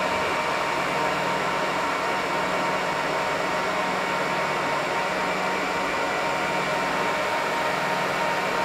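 Dell PowerEdge R720xd rack server's cooling fans running steadily: an even rush of air with a steady whine.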